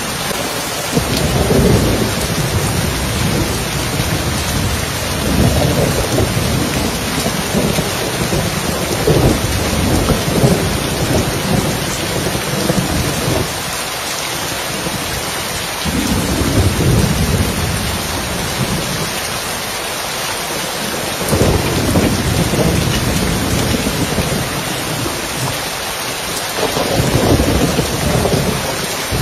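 Steady heavy rain on a roof, with rolls of thunder rumbling low every few seconds.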